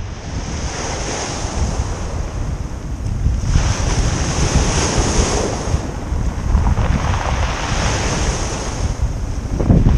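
Small waves breaking and washing up a pebble beach, swelling three times, about a second in, midway and near the end. Wind buffets the microphone with a steady rumble throughout.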